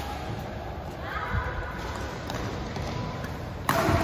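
Badminton racket hitting a shuttlecock overhead: one sharp crack near the end. Before it, patter of footsteps on the court floor.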